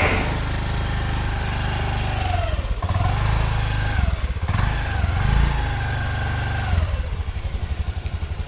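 Vehicle engine running on the move, with a whine that rises and falls with the throttle, over a heavy low rumble. Near the end it slows to a fast, pulsing beat.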